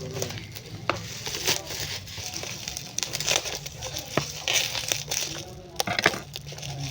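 Plastic packaging crinkling and rustling as a keyboard is unpacked, with irregular sharp crackles.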